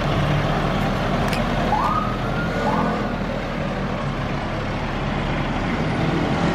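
Fire engines' diesel engines running as they roll slowly past, with a brief siren whoop that rises and holds about two seconds in.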